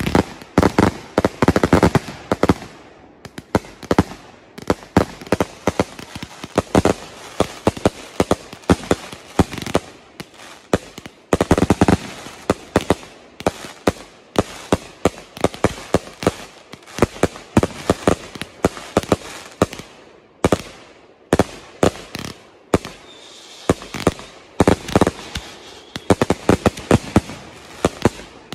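Grand-finale barrage of aerial fireworks: consumer cakes and shells firing bang after bang in rapid succession, with crackle between the reports. The volleys come thickest near the start, about twelve seconds in and near the end.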